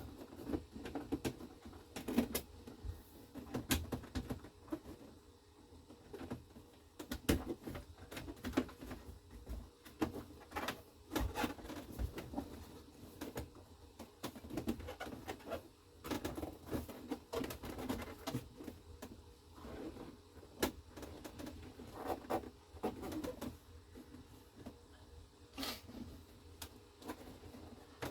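Dashboard trim pieces being handled and fitted back in place: irregular clicks, knocks and rustling.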